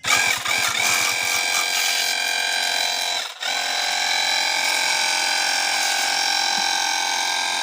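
Electric pressure washer's motor running with a steady whine while spraying, stopping for a moment about three seconds in and starting again.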